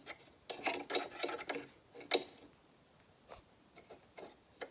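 Stiff nylon cleaning brush scrubbing lint out of the metal bobbin race and feed-dog area of a Janome XL601 sewing machine. Several short scratchy strokes over the first two seconds, a sharp tap a little after two seconds, then only faint scratches.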